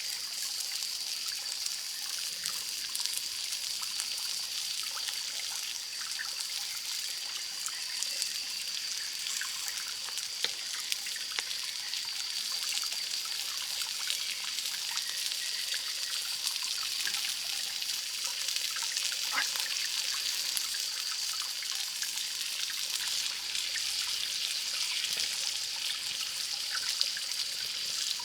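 Water trickling steadily, with a steady high-pitched tone above it and scattered faint ticks.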